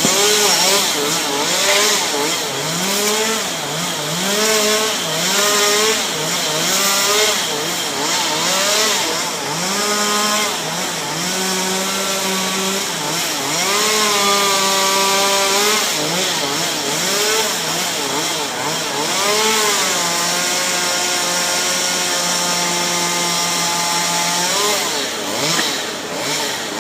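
Two-stroke chainsaw revving up and down about once a second, then held at steady high speed for several seconds at a time, twice.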